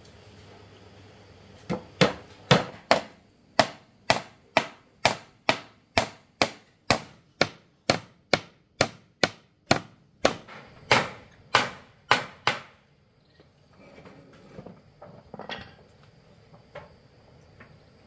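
A hand tool striking wood in a steady rhythm, about two blows a second, some two dozen in all over roughly ten seconds, then a few lighter knocks near the end.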